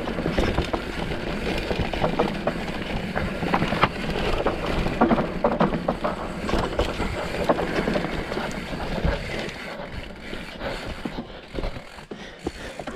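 Enduro mountain bike riding fast over rough dirt trail: a steady rush of tyre and wind noise with frequent rattling knocks from the bike, easing off about nine seconds in.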